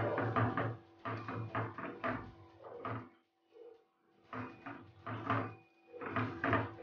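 Spatula stirring and scraping a thick eggplant-and-tomato mash in a frying pan: a run of quick scrapes and soft knocks, with a pause of about a second in the middle.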